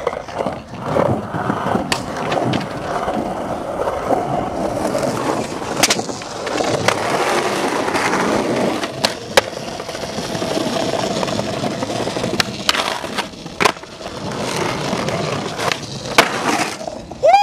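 Skateboard wheels rolling on concrete, broken by a run of sharp wooden clacks from tricks being popped and landed.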